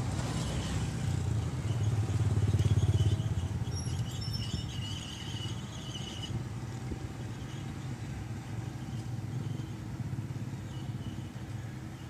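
Mitsubishi BD2G bulldozer's diesel engine running under work. It is loudest about two seconds in, then settles to a steadier, quieter run.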